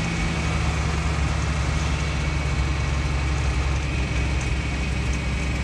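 Tractor engine running steadily as the tractor drives along a gravel road: a steady low hum under an even rush of road noise.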